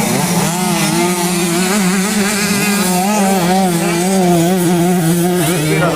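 Several 65cc two-stroke motocross bikes running hard, a steady high engine note whose pitch wavers up and down as riders work the throttle.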